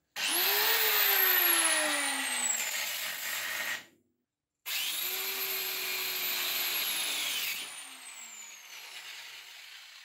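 Handheld angle grinder cutting through a steel car coil spring: it starts suddenly with a high whine whose pitch sags steadily as the disc bites. It stops about four seconds in, starts again for a few seconds of cutting, then winds down with a falling whine as the trigger is released.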